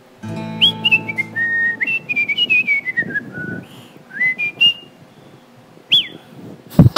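A person whistling a wandering tune that drifts downward in pitch, then a few short whistled notes, over a low steady hum during the first couple of seconds. Light clicks and knocks come throughout, and a sharp knock near the end is the loudest sound.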